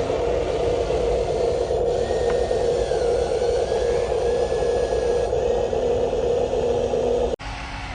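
Small electric motor and plastic gearing of a radio-controlled construction model running with a steady grinding, cutting off abruptly near the end.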